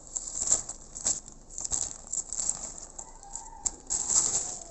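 Plastic instant-noodle wrappers crinkling and rustling as they are gathered up, with scattered sharp clicks and knocks.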